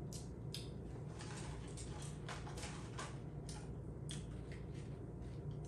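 Eating sounds of a fast-food meal: a run of short, crackly clicks from chewing and handling the food, over a steady low room hum.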